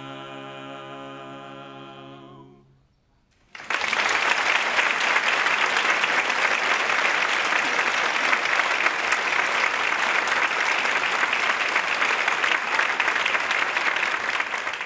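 A men's barbershop chorus holds the final a cappella chord of the song, which cuts off about three seconds in. After a brief silence, audience applause starts suddenly and continues loudly, louder than the singing.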